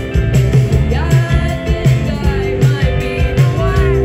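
Live rock band with a lead singer: sung vocals over drums, bass and electric guitars, played through a stage PA and heard from the crowd.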